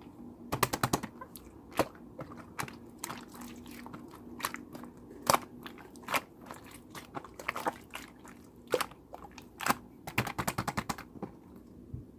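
Slime being squeezed and pressed by hand, giving sharp clicking and popping sounds. They come singly and in quick runs, with a fast burst about half a second in and another near the end.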